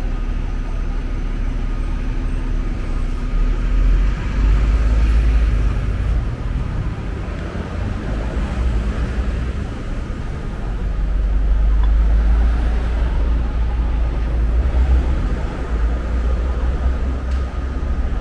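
City street ambience of road traffic: a deep rumble of passing vehicles, swelling about four seconds in and again from about eleven to sixteen seconds.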